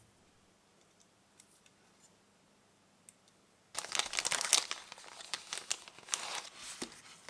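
Small clear plastic zip bag crinkling as it is handled in the hands. The crinkling starts suddenly about halfway in, after a few faint ticks.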